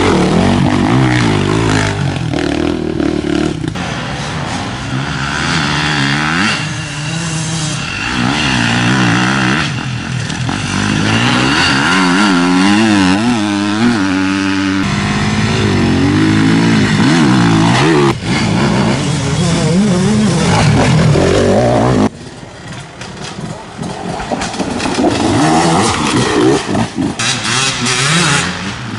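Enduro dirt bike engines revving hard and accelerating, their pitch rising and falling with throttle and gear changes as one bike after another rides past. The sound drops suddenly about three-quarters of the way through, then builds again as the next bike approaches.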